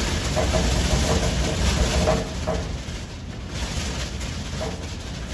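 Steady heavy rain, a dense even hiss over a low rumble.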